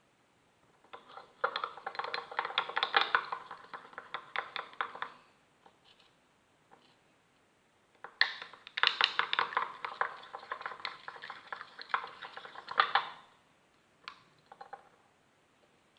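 A utensil stirring a mixture of liquid soap and toothpaste in a small container, clicking rapidly against its sides in two bouts of about four seconds each, with a few single clicks near the end.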